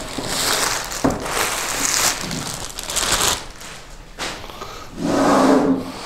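Plastic packaging bag crinkling and rustling as it is pulled off a rack-mount network switch, with a sharp knock about a second in. Near the end there is a louder, lower sound lasting under a second.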